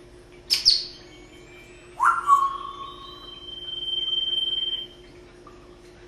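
African grey parrot vocalizing: a sharp click-like sound, then a short call that drops in pitch, then one long, steady high whistle that grows louder before cutting off.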